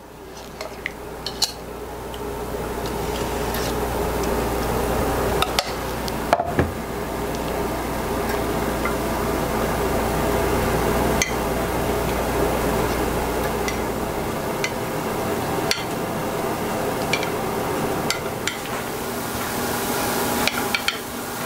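Spatula spreading thick vanilla custard over vanilla wafers in a glass baking dish: continuous wet scraping and smoothing, with a few short clicks of the spatula against the glass.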